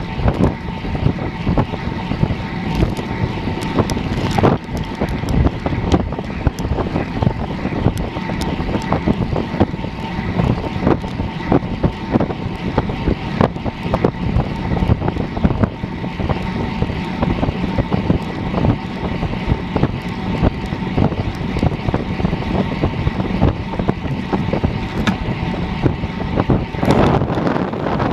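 Wind rushing over the bike-mounted camera's microphone and road tyres humming on asphalt as a road bike is ridden hard at about 45 km/h. The tyres are Continental GP 4000 S2 / GP TT 23 mm, pumped to 8–8.5 bar. Steady rushing noise with frequent small knocks from the road surface.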